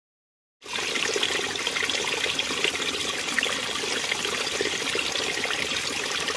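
Steady running water, like a stream flowing over rocks, starting abruptly about half a second in.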